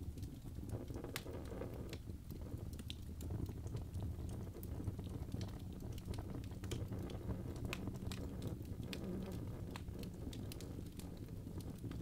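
Birch logs burning in a fireplace: a steady low rush of flame with frequent, irregular sharp crackles and pops.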